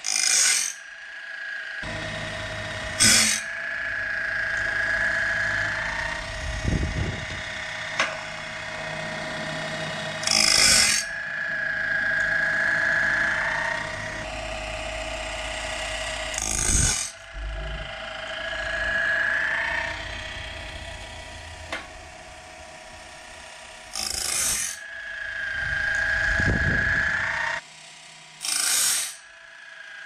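12-volt Woodland Mills automatic sawmill blade sharpener running, grinding the teeth and gullets of a bandsaw sawmill blade one tooth at a time. There is a steady motor whine with a hum that swells and fades as it works each tooth, and a short, harsh grinding burst every few seconds as the machine cycles from tooth to tooth.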